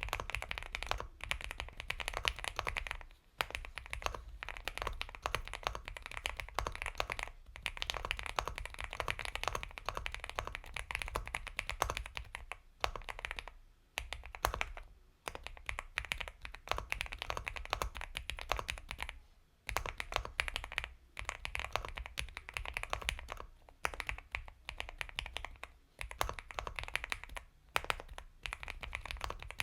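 Continuous fast typing on an Epomaker x Feker Galaxy 80 mechanical keyboard with Gateron Milky Yellow Pro linear switches: a dense run of soft, creamy keystrokes, broken by a few brief pauses.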